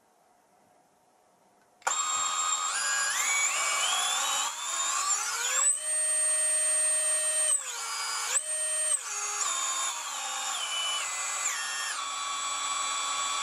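Emax RS2306 2750kV brushless motor spun up on the bench with no propeller fitted, giving a high electric whine. It starts about two seconds in, climbs in steps to a high pitch, dips and comes back up, then steps down as the throttle is eased back.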